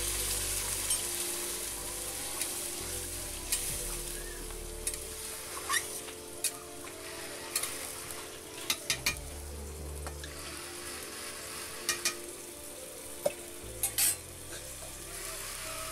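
Mutton curry sizzling in a metal pan over a wood fire after water is added. A metal spoon stirs it, knocking and scraping against the pan in about a dozen short, sharp clinks.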